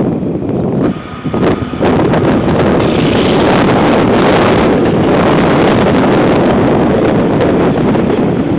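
Wind buffeting the microphone, then from about two seconds in a steady rumble of a container freight train passing on the line.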